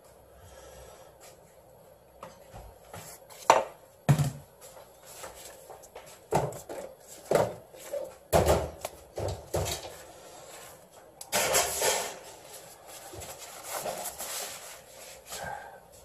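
Sporadic knocks, taps and clatter of kitchen counter work as fish fillets are handled and set on a scale for weighing. A rustling clatter comes about eleven seconds in.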